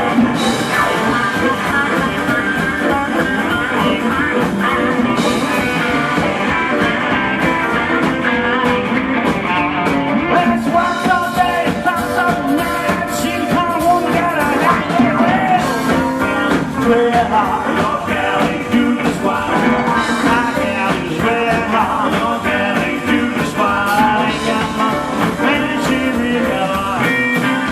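A live band playing a blues-rock tune, with guitar.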